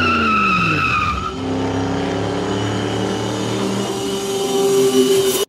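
Car tires squealing while the engine note falls over the first second or so. The engine then pulls away with a steady note that slowly rises, and cuts off suddenly at the end.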